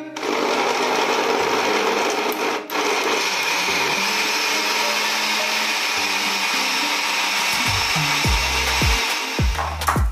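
SilverCrest countertop blender switched on and running at high speed, chopping cucumber, spinach and ginger in water into a smoothie, with a brief dip about three seconds in. Background music with a deep beat sits under it, plainest near the end.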